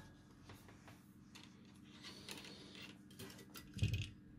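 Faint clicks and light rustles of hands handling soldering tools and a circuit board in its holder, with a louder knock about four seconds in, over a faint steady hum.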